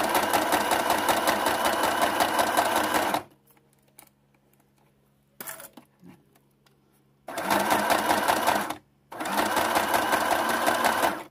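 Sewing machine stitching fabric bias binding onto clear plastic in three runs of fast, even stitching. The first lasts about three seconds; after a pause, two shorter runs follow close together near the end.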